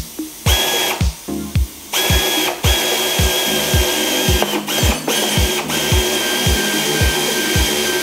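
A power tool running in spells with a high steady whine and brief breaks, over background music with a steady beat of about three a second.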